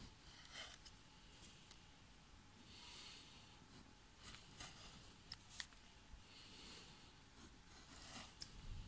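Faint cuts of a hand carving gouge slicing through wood: a few short hissing strokes with small sharp clicks in between.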